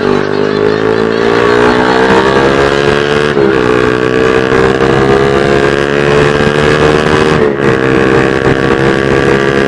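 Honda New CB150R's single-cylinder engine through a 3Tech Spartan GP racing exhaust, loud, pulling under acceleration: the note climbs, drops sharply about three and a half seconds in and again near eight seconds as it shifts up, then carries on.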